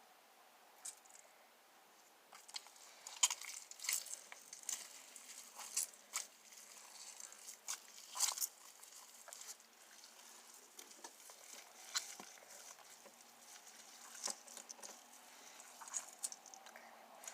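Sticky homemade slime being squeezed and pulled in the hands, giving faint, irregular clicks and small crackling pops, thickest in the first half.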